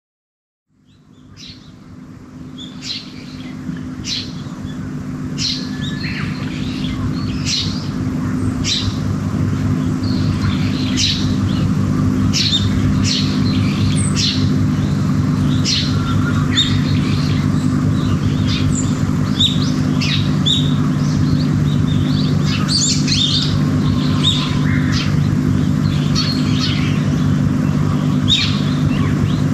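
Wild birds chirping and calling over and over, over a steady low hum. The sound fades in over the first several seconds, then holds steady.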